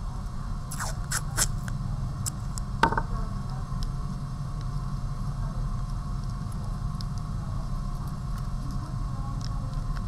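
Newspaper crinkling and masking tape being handled as a rolled paper strip is wrapped and taped around a wire figure's waist. A few sharp crackles come about a second in and again near three seconds, then only light, scattered ticks, over a steady low hum.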